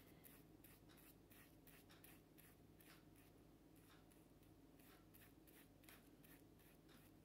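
Paintbrush stroking glue over a paper napkin laid on a terracotta pot, smoothing it down: faint, quick, repeated soft brushing strokes.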